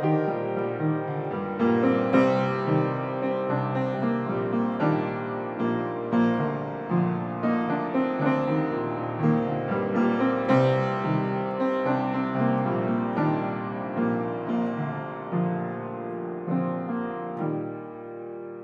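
Solo upright piano playing a flowing run of melody over chords. Near the end the playing stops on a held chord that rings and fades away.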